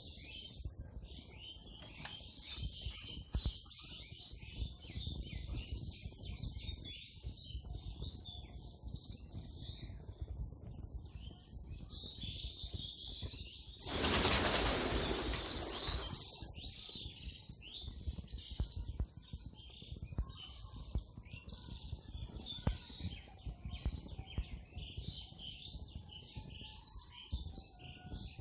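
Many small birds chirping in a dense, continuous chatter. About halfway through comes a loud flurry of wingbeats lasting about two seconds, as a flock of pigeons takes off.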